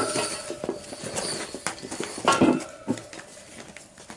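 Rubber motorcycle inner tube being pulled out of the tyre by gloved hands: irregular rubbing, short squeaks and knocks of rubber against the tyre bead and spoked rim, loudest about two and a half seconds in.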